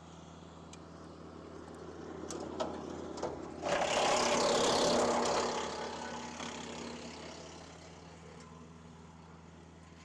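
Woodland Mills WC68 6-inch PTO wood chipper running steadily off a tractor. About three and a half seconds in it gives a loud grinding rush for about two seconds as it chews up a branch, then settles back to its steady running.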